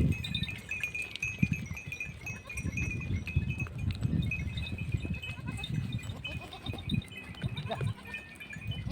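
Flock of sheep bleating in a string of irregular, overlapping calls, with a thin high chirping going on behind them.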